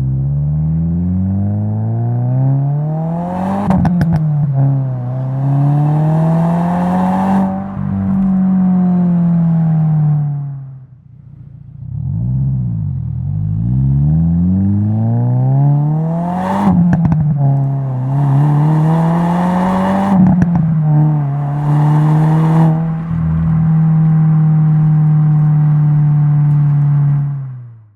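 2022 Subaru WRX's turbocharged 2.4-litre flat-four running through a Remark R1 catback exhaust with a titanium muffler, accelerating hard through the gears: engine pitch climbs, drops sharply at each upshift and climbs again, in two pulls with a brief lift between. Short bursts of rushing noise come around the shifts, and the second pull settles into a steady drone before cutting off at the end.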